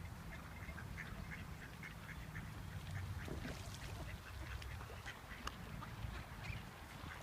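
Ducks quacking, many short calls in quick succession over a steady low rumble.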